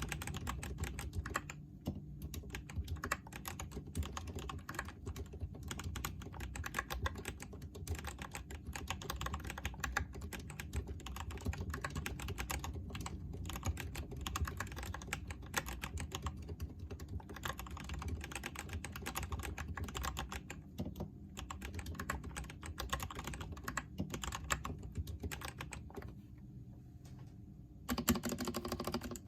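Continuous typing on a Delux T6 mechanical keyboard fitted with lubed Kailh Box Red linear switches, plus some Kailh Box Silent Pink switches on its right side: a dense, fast stream of keystrokes. Near the end the typing stops for about two seconds, then starts again louder.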